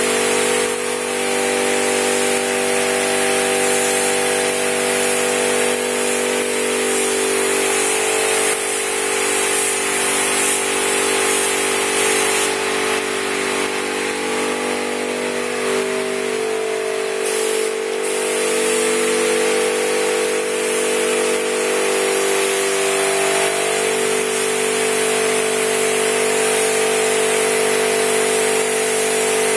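Gravity-feed spray gun hissing with compressed air as it lays clearcoat, over a steady mechanical drone with several held tones. The hiss shifts for a few seconds midway.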